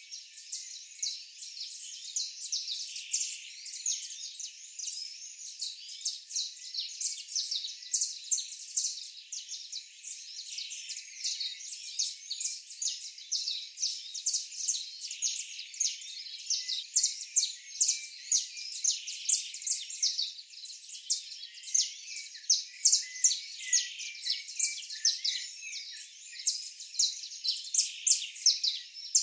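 Small birds chirping busily, many quick high chirps overlapping one another, growing louder in the second half.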